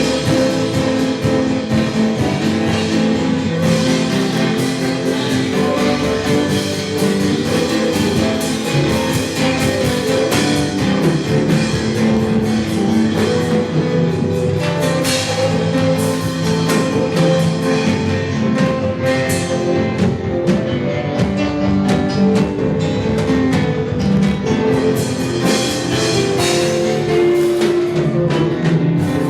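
Instrumental worship music with guitar and drums and sustained chords, playing steadily.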